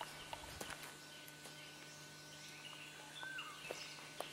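Faint forest ambience: a few light footsteps crackling on dry leaves and gravel, with a single short bird chirp a little over three seconds in, over a steady low hum.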